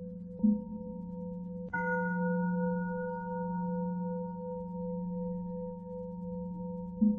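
A metal bell ringing with a steady, low, humming tone and clear overtones, struck again about two seconds in with a brighter strike whose high overtones fade over about three seconds. Short sharp knocks come about half a second in and again near the end.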